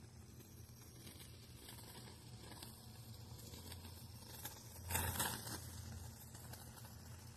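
Faint rustling and scraping of hands working a stick into a spray-foam insulation disc, with a brief louder scrape about five seconds in, over a low steady hum.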